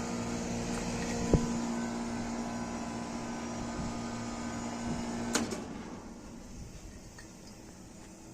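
Fuji air conditioner's compressor running with a steady hum and a single sharp click about a second in. About five seconds in it cuts out with a click and the hum dies away: the compressor tripping on low pressure because the refrigerant gas is low.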